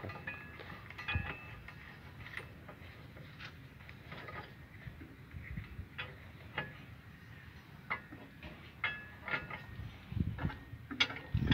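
Scattered metallic clicks and taps of a bolt and a box spanner against the steel track chain guard and track links of an excavator undercarriage, a few with a brief ring, and a duller knock near the end.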